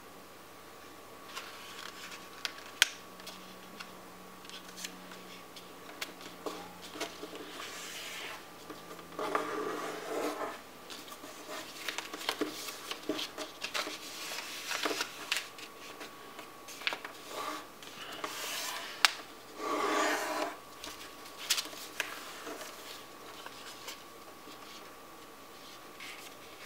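A sheet of paper being folded by hand on a tabletop: on-and-off rustling and fingers scraping along creases to press them flat, with a few sharp taps. Two longer, louder scrapes come about nine seconds in and about twenty seconds in.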